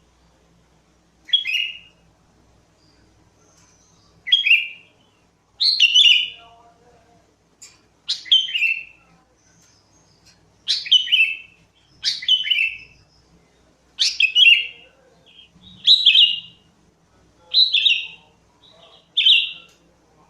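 Sooty-headed bulbul (kutilang) singing: a string of about eleven short, bubbly phrases of falling notes, one every second and a half or so.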